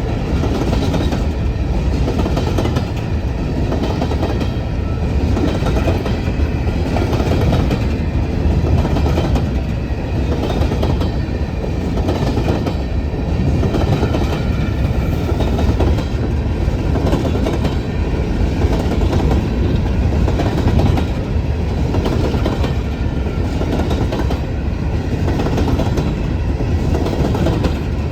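Coal train's hopper cars rolling past at close range: a steady loud rumble with repeated clickety-clack of wheels over rail joints and a few thin high tones from the wheels on the rail.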